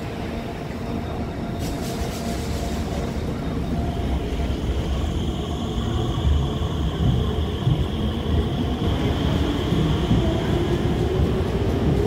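Alstom Movia R151 electric metro train pulling away from the platform: wheels rumbling on the rails, growing louder as it gathers speed, with a steady high whine setting in about four seconds in.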